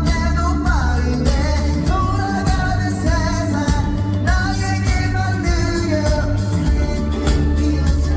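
Live pop song over a concert sound system: a singer's melody over a backing track with a heavy bass beat.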